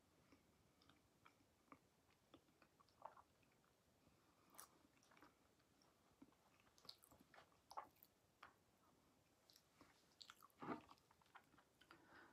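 Faint chewing of a dense chocolate peanut butter fudge brownie: scattered soft mouth clicks and smacks, with a slightly louder sound about ten and a half seconds in.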